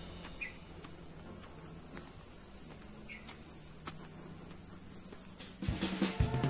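Insects singing a steady, high-pitched trill, with two short chirps in the middle. Near the end, music with jingling bells comes in.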